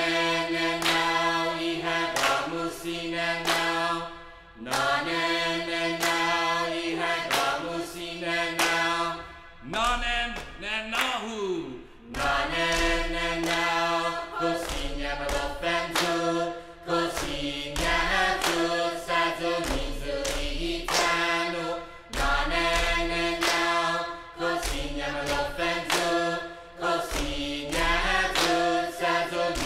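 A group of voices chanting together in long held notes over a steady low drone, phrase after phrase. There is a short break with sliding, wavering pitches about ten seconds in.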